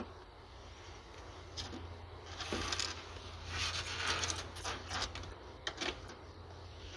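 Metal feeding tongs clicking and the rustle and crunch of monitor lizards snatching and chewing thawed mice: a string of short clicks and rustles, busiest in the middle.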